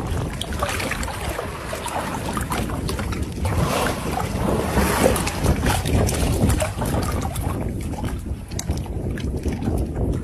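Wind rumbling on the microphone, with scattered short clicks and knocks over it.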